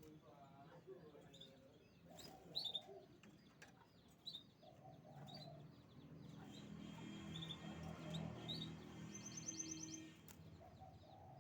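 Canaries chirping faintly: scattered short, high chirps, then a quick trill of about ten notes near the end.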